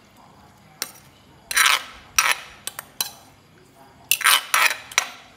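Spoon scraping and knocking against the inside of a clay mortar, scooping pounded green papaya salad out onto a plate: a string of short clinks and scrapes, with a longer scrape about a second and a half in and a quick run of them about four seconds in.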